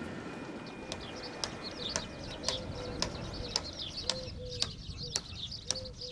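Marsh birds chirping and twittering in the Danube Delta, many short high calls overlapping, with a sharp click repeating about twice a second, each click followed by a brief low note.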